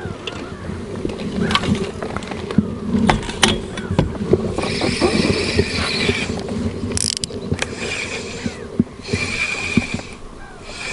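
Spinning reel cranked in several short bursts with pauses between them, its gears whirring, as in a stop-and-go lure retrieve. Before that come a few sharp clicks and knocks of gear being handled.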